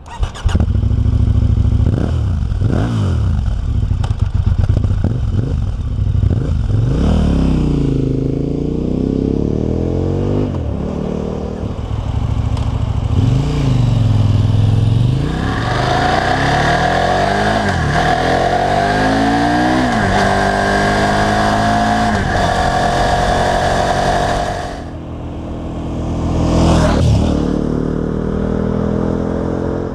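KTM 1190 Adventure's V-twin engine through an aftermarket Akrapovic exhaust, revved several times in rising and falling blips, then pulling away and accelerating hard for several seconds. The note drops off, swells again as the bike comes back, and runs on.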